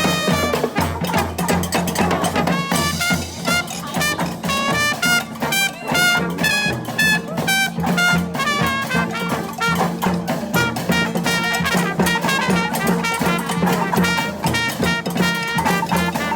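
Brass band playing live: horns over a steady drum beat, with a held low bass note underneath.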